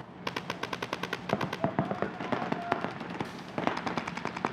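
Paintball markers firing rapid strings of shots, about ten a second at first, then several guns overlapping in irregular volleys.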